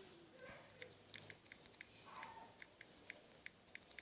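Faint, irregular tapping clicks, about two or three a second, of fingers typing on a phone's touchscreen.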